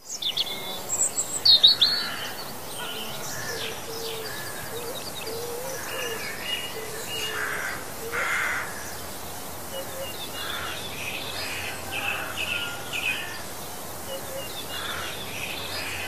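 Birds chirping and calling: many short high chirps, the loudest about one and a half seconds in, over a faint steady hiss of outdoor ambience.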